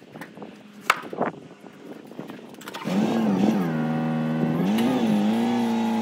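A couple of sharp knocks, then about three seconds in a Toyota forklift's engine starts running loudly, its pitch rising and dipping twice before settling into a steady run.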